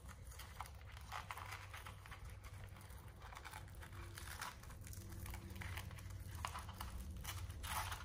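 Faint crinkling and light clicks of hands handling and pressing down a plastic battery tray with double-sided adhesive tape, over a low steady hum.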